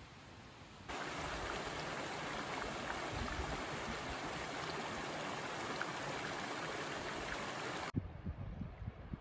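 A small mountain creek cascading over granite boulders: a steady rush of water that starts suddenly about a second in and cuts off near the end. After it, low gusts of wind buffet the microphone.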